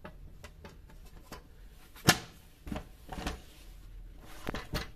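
Clicks and knocks of a sandwich toaster's ribbed grill plates and hinged lid being handled: one sharp knock about two seconds in, then a few softer ones.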